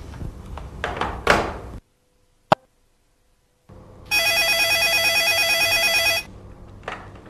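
Telephone ringing: a single ring about two seconds long with a fast trill, answered as a business line. A sharp click comes a little before the ring.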